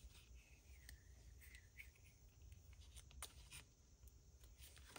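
Faint rubbing of a Scotch glue stick on paper, with a few light clicks and rustles as a loose corner of the paper is glued down.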